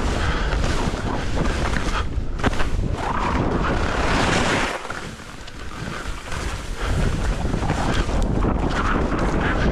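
Wind rushing over the microphone while skiing downhill, mixed with skis hissing and scraping over packed snow. There is a sharper hiss about four seconds in, then a brief lull before the rush picks up again.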